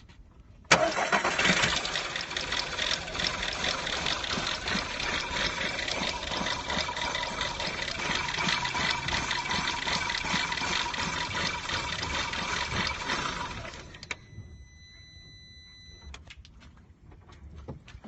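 Car engine cold-starting under a second in and running for about thirteen seconds before shutting off; the owner questions whether it misfires on cold start. After it stops, a steady beep sounds for about two seconds, followed by a few clicks.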